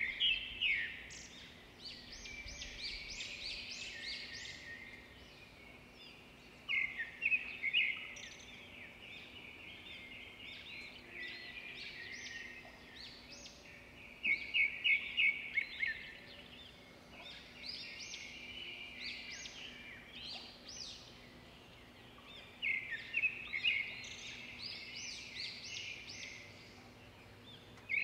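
Birds singing: a loud burst of rapid, high notes comes about every seven seconds, with softer chattering between the bursts.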